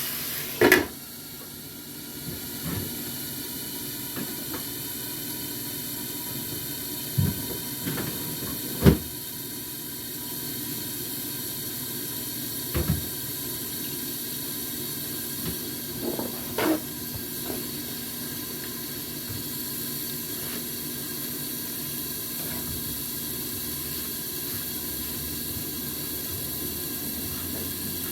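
Food sizzling in a pan: a steady hiss broken by a few sharp knocks, the loudest about a second in and about nine seconds in.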